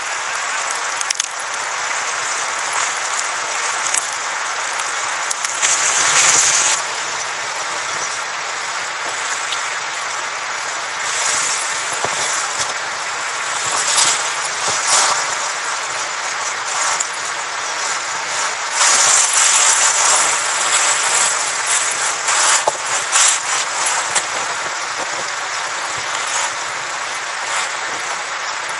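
Steady rushing wind noise with several louder gusts along the way, and a few faint sharp knocks.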